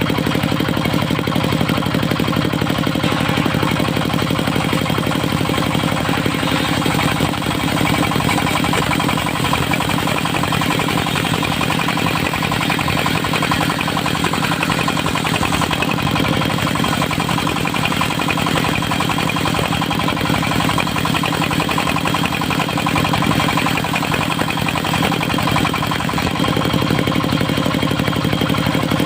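Engine of a portable circular-saw sawmill running steadily at an even speed.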